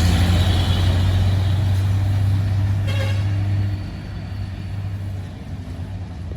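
UD Quester truck engine pulling uphill with a loud, deep rumble that eases off about four seconds in. A short pitched beep sounds about three seconds in.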